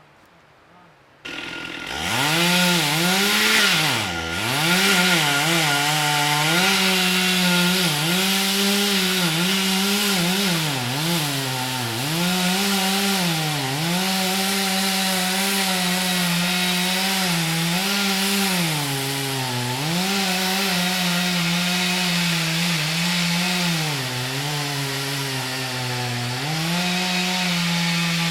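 Chainsaw revving up suddenly about a second in, then running at high speed while cutting the tree, its engine pitch dipping and recovering again and again as the throttle and the load change.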